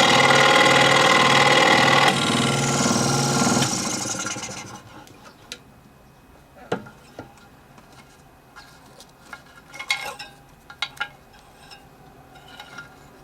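Electric scroll saw running with a steady rhythmic chatter, changing about two seconds in and then winding down to a stop by about five seconds. After that, scattered light clicks and knocks.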